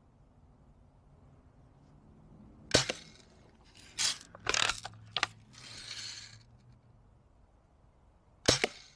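Red Ryder lever-action BB gun being fired at a cardboard target box: two sharp cracks about six seconds apart, the first the loudest, with a few lighter clacks and clicks between them.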